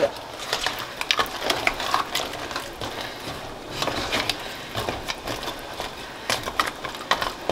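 A wooden spatula stirring crab pieces through curry gravy in a metal pot, the crab shells knocking and scraping against each other and the pot in irregular clicks.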